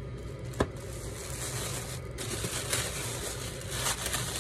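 Tissue paper rustling and crinkling as hands unwrap a package, with a single sharp tap about half a second in.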